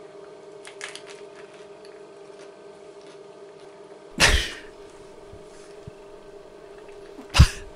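A woman chewing a bite of a bread roll filled with tuna and crisps, with a faint crunch, over a steady electrical hum. Two sudden loud noises come about four seconds in and again near the end.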